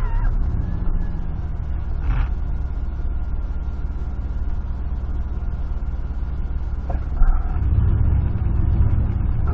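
1996 GMC pickup's V8 engine running at low speed, heard from inside the cab as a steady low rumble. A short knock about seven seconds in, then the rumble grows louder.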